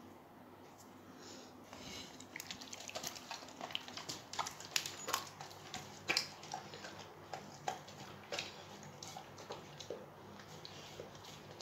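A dog licking a ceramic plate, its tongue lapping with quick, irregular clicks and taps against the plate. It starts about two seconds in, is busiest in the middle and thins out toward the end.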